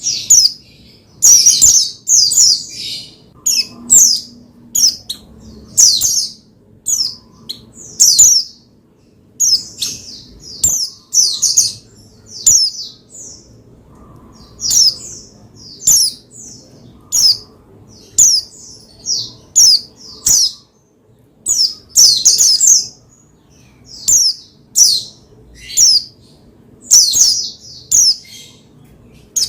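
White-eye (pleci) singing in short, high, quick chirping phrases that come every second or two, with brief pauses between them.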